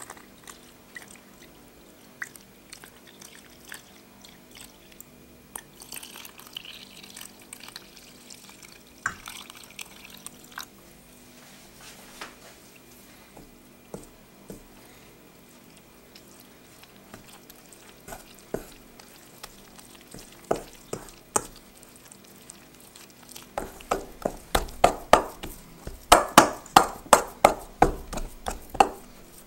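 Water poured from a glass onto flour in a stainless steel bowl, then a hand mixing it in with soft wet squishes. For the last six seconds or so, the sticky dough is worked by hand against the bowl in rhythmic wet slaps, about three a second, the loudest part of the sound.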